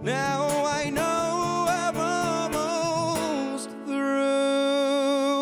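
A man's voice singing a melody with vibrato over a strummed acoustic guitar, settling into a long held note for the last second and a half.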